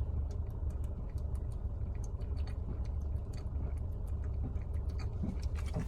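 A man chugging a bottle of Sprite: a run of small irregular clicks from gulping and swallowing, a few a second, over a steady low rumble.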